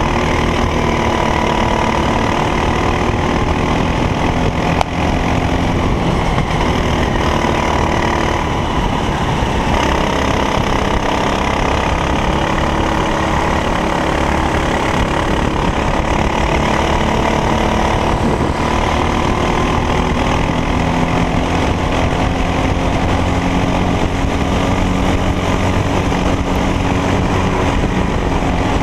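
Racing kart engine at race pace. It runs continuously, its pitch falling and climbing as the kart slows for corners and accelerates out of them, with one long steady climb in the last third.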